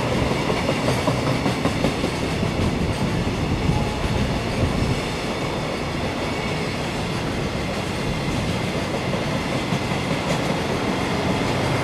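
Container wagons of a JR Freight train rolling past, the wheels clacking over the rail joints now and then.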